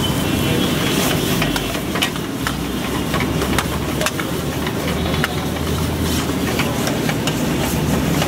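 A steel ladle stirs thick palak meat curry in a steel pan, clinking and scraping against the metal again and again, over a steady low rumble of road traffic.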